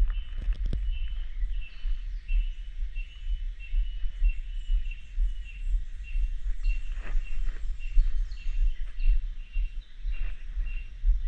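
Rainforest ambience: a short, high chirp repeating about twice a second, with a few louder calls, over a heavy low rumble on the action camera's microphone.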